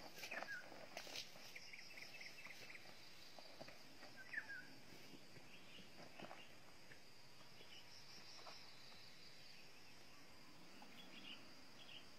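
Faint outdoor ambience: insects droning steadily at a high pitch, with scattered short bird chirps, one louder chirp about four seconds in.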